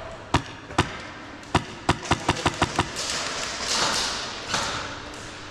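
Airsoft guns firing indoors: two single sharp shots, then a quick string of about eight shots in just over a second.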